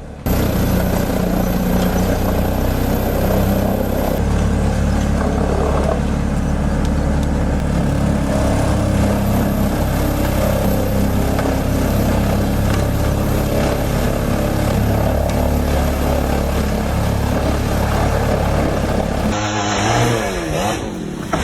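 Woodsman 440 whole-tree chipper's engine running hard under load as a tree is fed through, a steady heavy drone. About 19 seconds in it gives way abruptly to a different, hissier sound.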